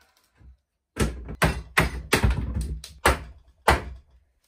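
Hammer blows on an old wooden cupboard: one faint knock, then from about a second in a run of sharp strikes about two a second, denser around the middle.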